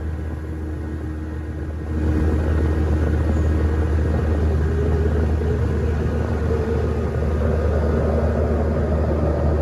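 A small boat's outboard motor running under way, a steady low drone. It gets louder about two seconds in as the boat speeds up, then holds steady.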